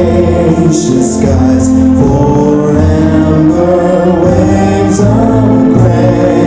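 A song sung with instrumental accompaniment, in long held notes.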